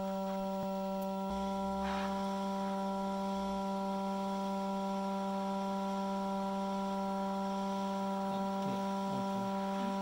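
Hot air rework station blowing at 75% airflow: a steady hum with an even hiss of air.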